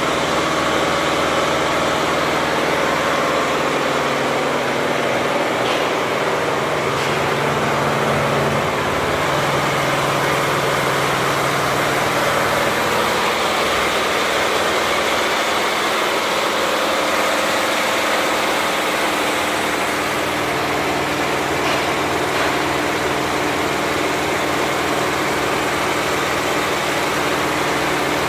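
Richpeace 20-head flat embroidery machine stitching at 1200 RPM: a loud, steady, continuous mechanical running sound.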